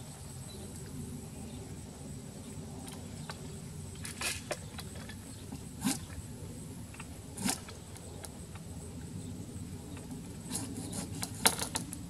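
Steady engine hum from the tree-removal work, with scattered sharp clicks and taps, a few of them bunched together near the end.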